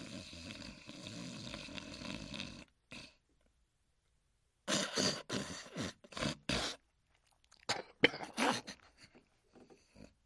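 Cartoon hound snoring in his sleep. A long rasping snore of about three seconds, then after a pause a run of short, broken snorts and splutters.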